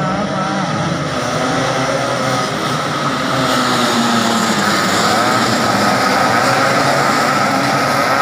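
A pack of classic Vespa-style two-stroke racing scooters running at high revs, several engine notes wavering at once, getting louder about three and a half seconds in as the pack comes past.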